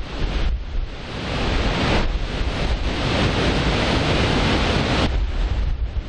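Large waterfall swollen with muddy floodwater after a downpour, plunging off a sea cliff into the sea: a steady, dense rushing of falling water and surf, with wind buffeting the microphone. The rush thickens about half a second in and thins abruptly about five seconds in.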